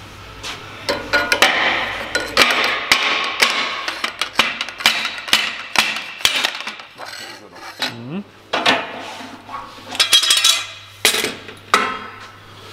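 Steel exhaust tube being knocked with a hammer and handled: an irregular run of metal clanks and taps, each ringing briefly.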